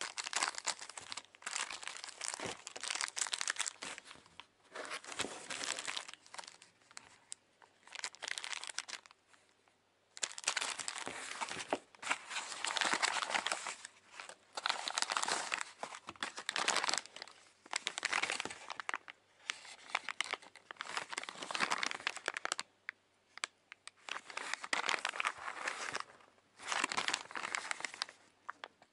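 Clear plastic bags and bubble-wrap packaging crinkling as they are handled and unwrapped, in repeated bursts of a second or two with short pauses between.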